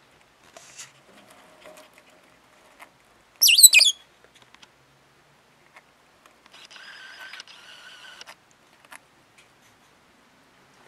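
Lovebirds calling in the nest box. One loud, sharp, high chirp comes about three and a half seconds in, and a softer, steady call follows later and lasts about a second and a half. Faint small ticks fill the rest.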